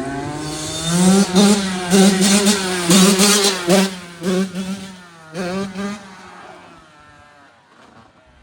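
Two-stroke dirt bike engine revving hard in repeated bursts, the pitch rising and dropping with each blip, then falling away over the last couple of seconds.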